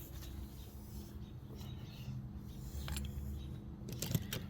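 Steady low background hum, with a few light clicks and knocks from small hand tools being handled, about three seconds in and again near the end.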